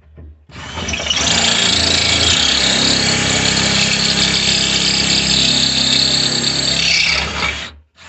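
DeWalt brushless cordless drill running steadily for about seven seconds, driving a screw into a concealed cabinet hinge, then stopping, with a brief second pull of the trigger near the end.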